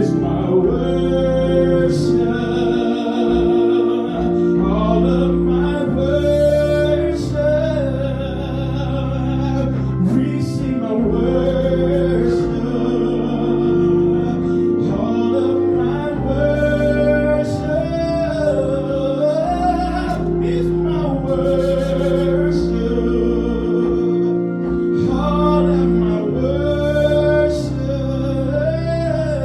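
Gospel worship song: a sung melody over held accompaniment chords and bass.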